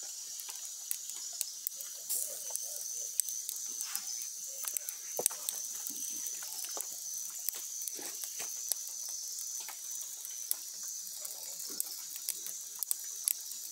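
Small wood fire crackling with irregular sharp pops as a paca's fur is singed over the flames, a steady high insect drone behind it.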